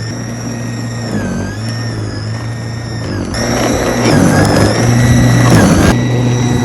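An engine running with a whine that wavers in pitch; about three seconds in it grows louder and rougher.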